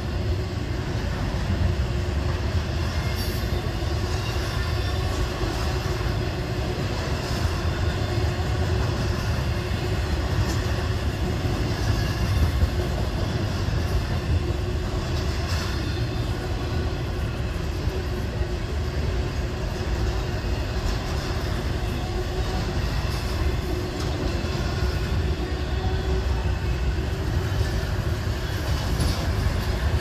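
Double-stack container train rolling steadily past: the rumble of the well cars' wheels on the rails, with no break or change in level.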